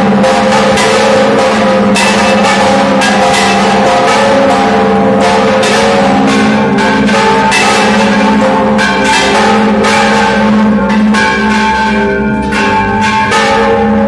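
Bronze church bells ringing a repique: several bells struck in rapid, overlapping succession over a sustained ringing hum, the large bells swung on their headstocks and the smaller ones pulled by ropes. The strikes thin out near the end.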